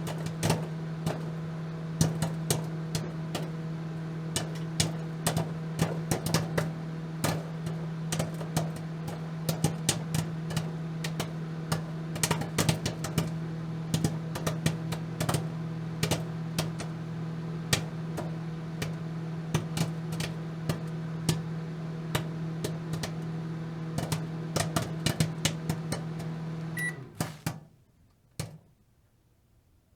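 Microwave oven running with a steady hum while popcorn pops inside, sharp irregular pops coming thick and fast throughout. Near the end the hum cuts off and a few last pops follow.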